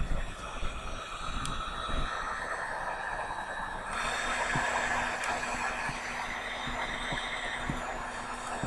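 Electric heat gun blowing steadily over a thin layer of acrylic paint to make it bubble. About four seconds in its sound shifts slightly and a low hum comes in.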